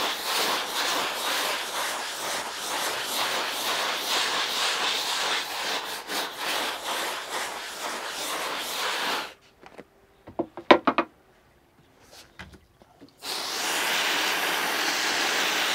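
A stiff-bristled scrub brush scrubs a vinyl boat seat wet with OxiClean and water, a rasping run of quick brush strokes that stops about nine seconds in. After a few seconds of near quiet with a few short sounds, a hose sprays water over the seat in a steady hiss near the end.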